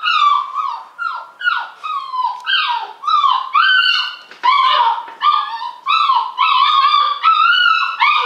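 Puppy whining and whimpering in a long run of short high calls, about two a second, many of them falling in pitch.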